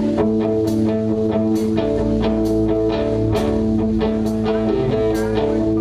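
Live band playing: guitar chords held over a bass line, with a steady beat struck about once a second.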